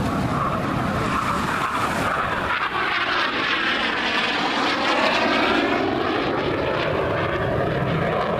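Aermacchi MB-339 jet trainer's turbojet roaring through a low display pass. The roar is steady, with a swirling, phasing sweep in it as the jet passes, loudest about two-thirds of the way in.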